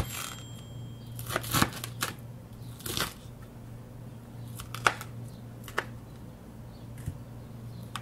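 Kitchen knife sawing through the crisp fried cornflake-and-breadcrumb crust of a chicken cutlet on a wooden cutting board, giving crunching strokes in the first three seconds, then a few short sharp clicks. The crunch shows the coating is fried very crispy.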